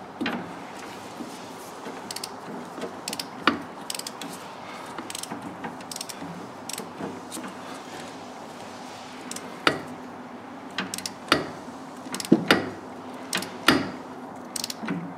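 Ratchet wrench on a deep socket clicking as a new oil pressure switch is tightened toward its 10 Nm torque. The clicks are few and scattered at first and come more often in the last few seconds.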